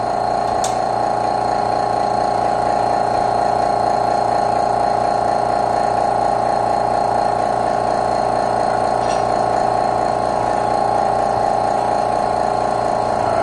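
Steady machine hum at a constant pitch, with no change in speed or load.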